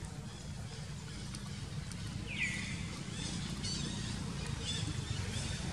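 Outdoor ambience: a steady low rumble with a few short high-pitched animal calls over it, the clearest a single falling squeal about two and a half seconds in.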